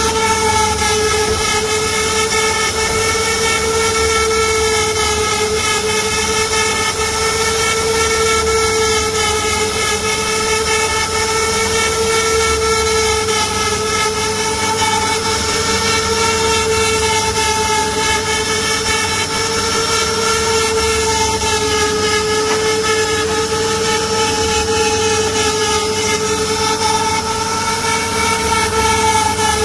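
Router motors on a multi-head CNC wood router running at high speed while the bits carve relief patterns into wooden panels: a loud, steady high whine over a constant hiss, the pitch wavering slightly now and then.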